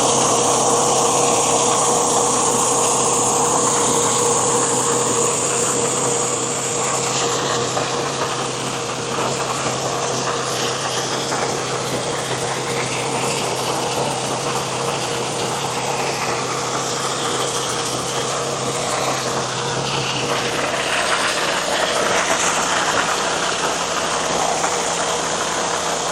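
An engine running steadily. A low hum in it drops away about 20 seconds in, and a high hiss fades out about 7 seconds in.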